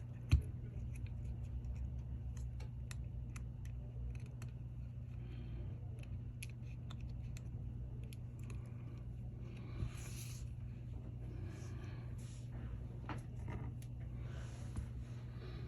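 Small clicks and light scraping of tools and small metal parts as the metal shield is fitted over the new rear camera inside an iPhone 12 Pro Max, with one sharp click just after the start. A steady low hum runs underneath.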